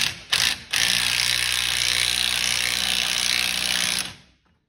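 Cordless power tool driving a fastener on a car's wheel hub, undoing an old factory wheel spacer. It gives a few short bursts, then runs continuously for about three seconds and stops.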